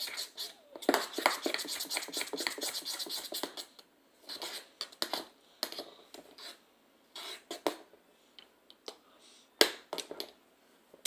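Metal spoon stirring and scraping inside a stainless-steel cup of root beer float: a dense run of quick scrapes and clinks for about three seconds, then scattered single clinks.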